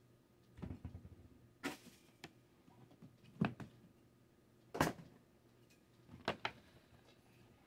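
A scattering of short knocks and clicks, about seven in all, as kitchen items are handled and set down on a countertop. The loudest come about three and a half and five seconds in.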